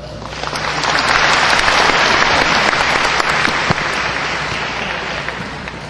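Audience applauding: the clapping swells within the first second, holds, then fades gradually toward the end.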